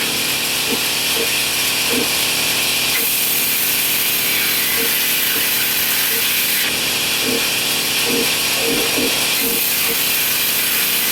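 Power tool working wood: a loud, steady hiss that shifts abruptly in level about three times.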